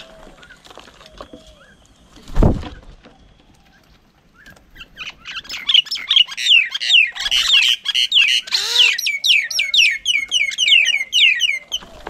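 A dull thump a couple of seconds in, then from about five seconds on a loud, dense chatter of bird calls: quick, high notes sweeping downward, several birds calling over one another.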